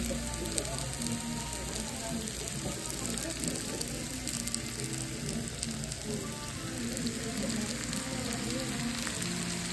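Chicken fajitas sizzling on a hot cast-iron skillet: a steady hiss with fine crackles.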